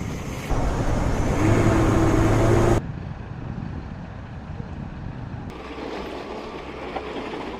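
Rough outdoor field audio with a vehicle engine running and wind noise, cut off and changed abruptly several times. It is loudest in the first few seconds, with a steady engine hum.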